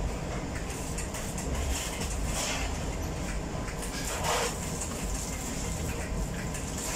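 Steady low rumble and hum of bakery machinery, with a few short noises over it, the loudest about four seconds in.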